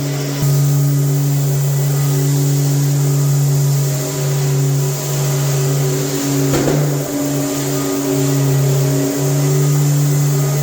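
Electric drywall sander motor running steadily against new drywall, with a hiss over its hum. Its pitch dips briefly several times as it is loaded, and there is a short scraping burst about six and a half seconds in.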